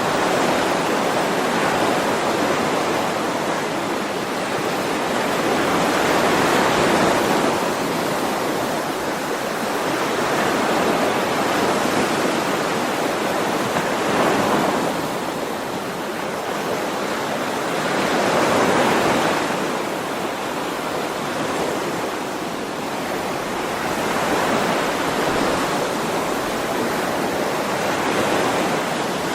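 Ocean waves, a continuous surf that swells and eases every few seconds as each wave comes in and draws back.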